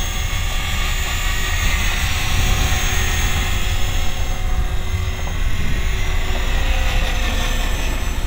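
HK500CMT radio-controlled model helicopter in flight, its rotors and drivetrain giving a steady whine over a heavy low rumble.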